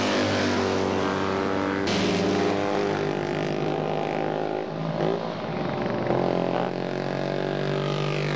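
Vintage DKW two-stroke racing motorcycles running past at speed, their engine notes shifting in pitch as each bike goes by. The sound changes abruptly about two seconds in.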